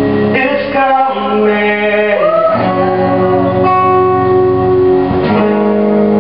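Live solo music: guitar playing with a sung melody of long held notes.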